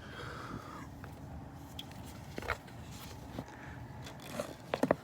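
Hand tool clinking on the exhaust header bolts as they are worked to break them loose: a few light clicks midway, then a quick run of three or four sharp metal clicks near the end. The bolt is pretty tight.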